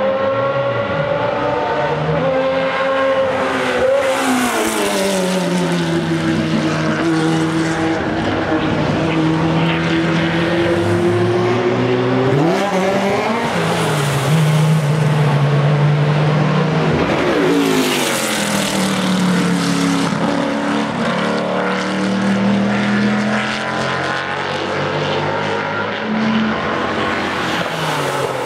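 Several historic sports-prototype racing cars' engines going past at speed one after another, their notes rising and falling as they pass and change gear, several engines overlapping at once.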